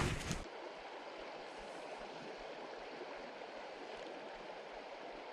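Creek water running steadily, an even rushing hiss, with a short louder noise right at the start.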